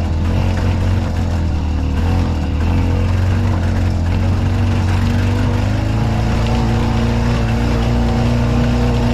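Gas engine of a Harley-Davidson golf car running steadily as the car drives along, a low drone whose pitch shifts slightly about halfway through.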